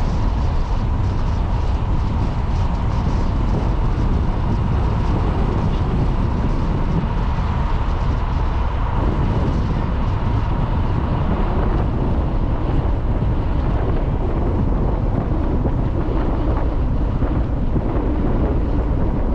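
Car driving steadily along a narrow tarmac lane: an even rumble of tyre and engine noise, with a faint steady whine above it.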